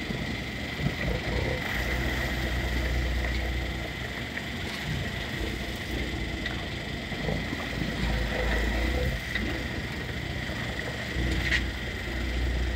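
Sportfishing boat's engines running, with water rushing past the hull: a low rumble that swells and eases several times.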